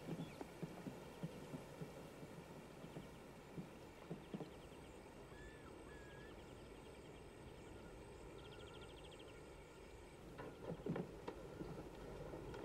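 Footsteps on the wooden ties of a railroad trestle: irregular soft knocks, thinning out about halfway and picking up again near the end, over a faint outdoor background with a brief chirp.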